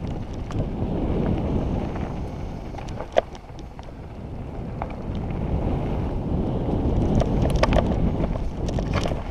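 Mountain bike descending a dry, rocky dirt trail: wind rushing over a helmet-mounted microphone and tyres rolling on dirt, with the bike rattling and clicking over bumps and one sharp knock about three seconds in.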